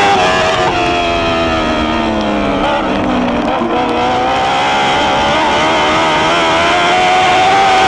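Dwarf race car's motorcycle engine running hard, heard from onboard the car. About a second in, its note drops as the driver lifts off the throttle, then climbs back as he gets on the throttle again from about four seconds in.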